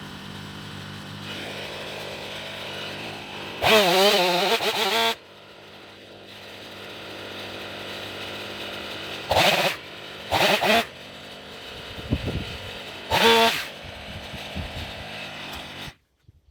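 Stihl MS500i fuel-injected two-stroke chainsaw idling steadily. About four seconds in it is revved hard for about a second and a half, then blipped three more times in short bursts, and the sound cuts off abruptly near the end.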